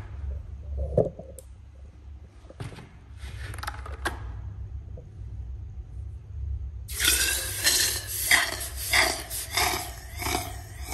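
Hot copper pipe quenched in a bucket of water to anneal (soften) it, hissing and crackling from about seven seconds in. Before that come a few light knocks and clinks as the pipe is handled.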